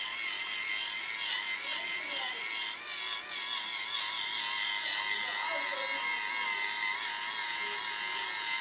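Small battery-powered rotating facial cleansing brush whirring steadily as it scrubs cream cleanser into the skin, its pitch wavering slightly as the brush head is pressed and moved over the face.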